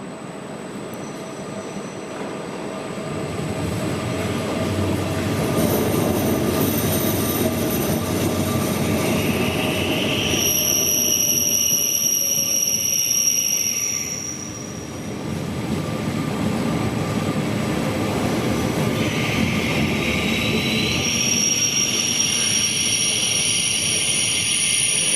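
SBB RABe 502 FV Dosto (Bombardier Twindexx) double-deck train rolling in with a rising rumble while its brakes squeal in steady, piercing high tones. The squeal comes in two spells: one about ten seconds in lasting several seconds, and another from about twenty seconds on.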